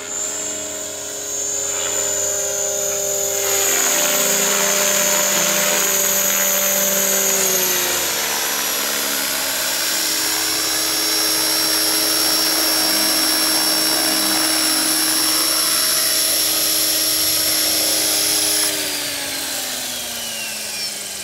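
Align 500 electric RC helicopter flying low: a high motor and gear whine over the rotor noise, stepping down in pitch about a third of the way in. It then sets down, and near the end the motor is cut and the rotor spins down, its whine falling steadily in pitch and level.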